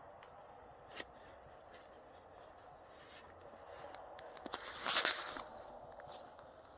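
A wooden paddle stirring peanuts in a large aluminium boiling pot: a light knock about a second in and a louder scrape about five seconds in, over a steady low rush.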